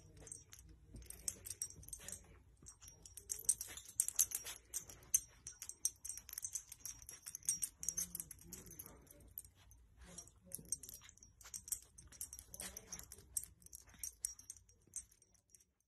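A dog nosing and pushing a blanket over a baby: soft, irregular rustling and clicking of fabric with light jingling, in short flurries.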